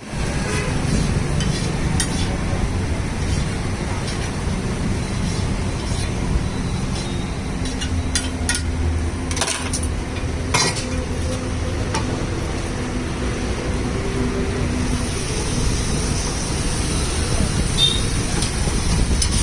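Pav bhaji being cooked on a griddle: a metal spatula stirring, scraping and striking with a few sharp clinks, amid sizzling, over a steady background of street traffic.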